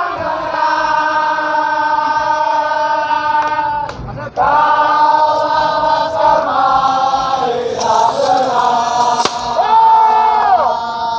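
A group of voices singing a slow supporters' song in long, held notes, with a sharp crack about nine seconds in.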